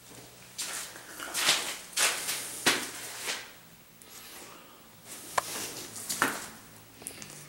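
Irregular scuffs and rubs, each a fraction of a second long, with a couple of sharp clicks: footsteps and handling noise from someone moving about while filming.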